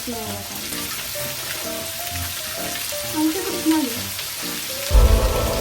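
Skewers of meat and vegetables sizzling on an electric hot plate, with background music over it and a loud low thump near the end.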